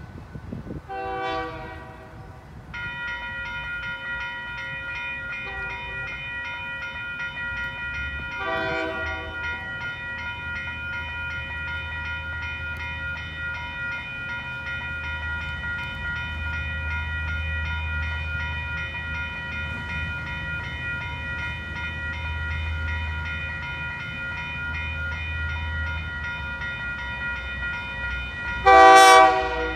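Train horn blowing short chords: once near the start, again about nine seconds in, and loudest near the end. From about three seconds in a railroad crossing signal's electronic bell rings steadily, while a low locomotive rumble swells and fades through the middle as the train passes over the crossing.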